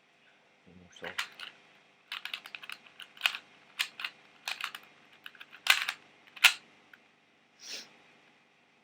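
A plastic 2x2x2 pocket cube being turned fast in a speedsolve: a quick, irregular clatter of plastic clicks and clacks, with two louder clacks about six seconds in.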